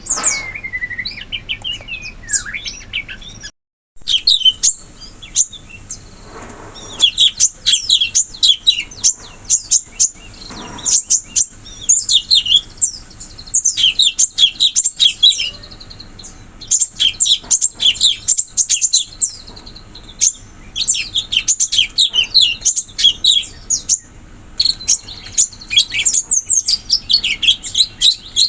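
Cucak cungkok songbird singing in rapid bouts of sharp, chattering chirps and trills, each bout a second or two long with short pauses between. The sound cuts out completely for a moment about three and a half seconds in.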